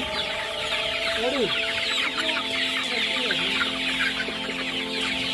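A large flock of domestic chickens clucking and chattering together, many overlapping calls with a few louder drawn-out clucks, over a steady hum.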